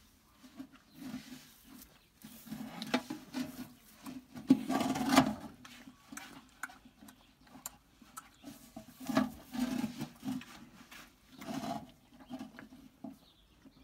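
A calf drinking milk from a metal bucket, with noisy slurps and gulps that come in irregular bursts; the loudest stretch is about five seconds in.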